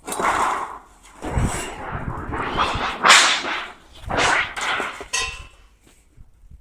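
Thin sheet metal being handled and bent on a sheet-metal machine: a run of rattling, rushing swishes, the loudest about three seconds in, and a brief metallic ring a little after five seconds.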